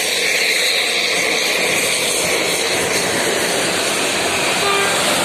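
Steady, loud rushing of road traffic: vehicle engine and tyre noise holding level, with no clear rise or fall.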